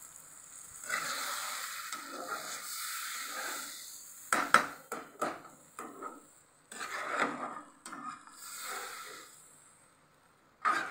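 Water poured from a glass into a hot kadai of fried masala paste, a steady rushing noise for the first few seconds. Then a metal spatula stirs the thinned gravy, scraping and knocking against the pan with several sharp taps about four seconds in and a loud knock near the end.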